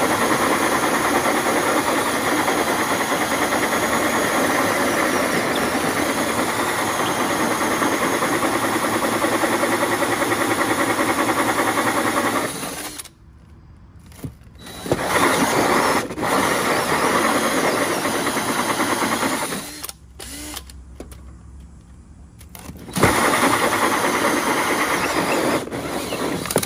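Cordless drill spinning a hole saw through a house's exterior wall to cut the vent-duct hole. It cuts in three runs: a long steady one of about twelve seconds, a stop, a run of about five seconds, a short pause, and a final run of a few seconds near the end.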